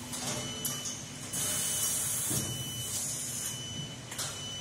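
Compressed air hissing out for about a second, from just over a second in, as the pneumatics of a robotic welding cell work. There are a few short sharp clicks near the start and near the end, over a steady machine hum.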